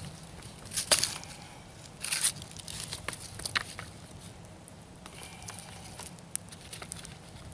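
Campfire wood being shifted and handled: a few short scraping, rustling bursts in the first half, with scattered sharp crackling pops from the burning sticks.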